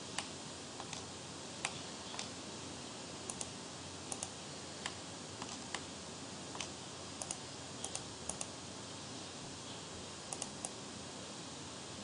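About twenty sharp clicks of computer use, scattered irregularly and often in quick pairs, over a steady background hiss.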